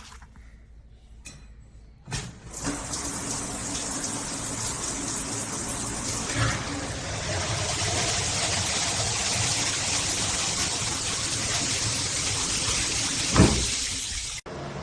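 Shower running: water spraying from the shower head as a steady rush that starts suddenly about two seconds in and cuts off just before the end, with a brief knock about a second before it stops.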